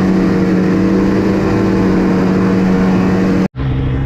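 Snowmobile engine running at a steady speed under way, a loud, even drone. About three and a half seconds in, the sound breaks off abruptly for an instant, then an engine comes back rising in pitch.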